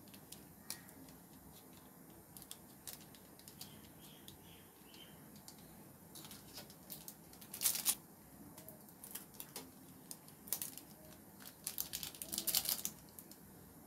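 Foil spice sachets crinkling and rustling in the hand as Maggi masala powder is shaken out of them, in scattered small clicks with a louder burst about eight seconds in and another near the end.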